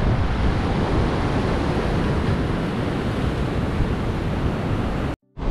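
Ocean surf breaking and washing over rocks, with wind buffeting the microphone, a steady rushing noise. The sound drops out for a moment near the end.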